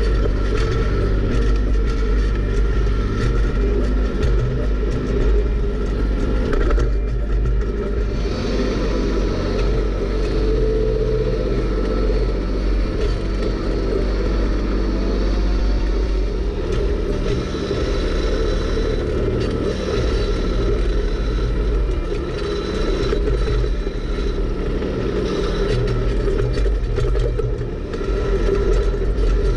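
Kubota B2601 compact tractor's three-cylinder diesel engine running steadily while the tractor drives slowly with a log held in its front grapple.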